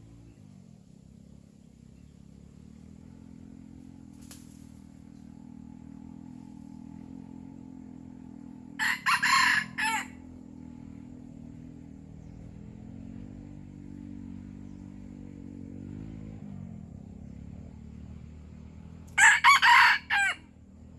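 Red junglefowl rooster crowing twice, about ten seconds apart, each a short broken crow of a second or so. A faint low hum runs underneath.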